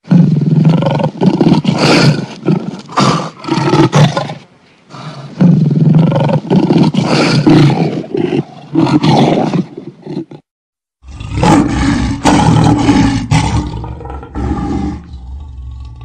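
Tiger roaring in three long bouts, each a run of pulsed roars, broken by short pauses about five and eleven seconds in.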